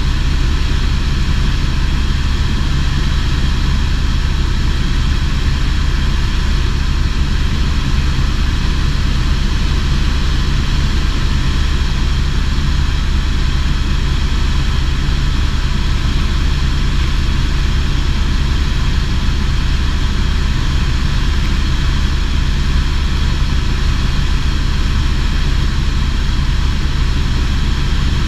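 Tour helicopter's rotor and turbine engine in steady cruise, a loud even drone with a deep low throb.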